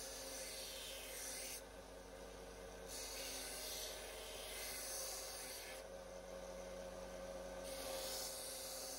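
Scheppach band saw running and cutting a round wooden dowel: a rasping hiss of the blade through the wood over the saw's steady hum. The cutting noise drops out twice for a second or two, leaving only the hum of the running saw.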